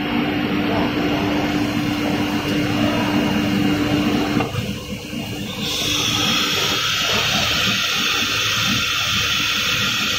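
Automatic-tool-change CNC router: a steady machine hum drops away about four and a half seconds in. About a second later a loud, steady hiss of compressed air starts, the pneumatic blast at the spindle during a tool change.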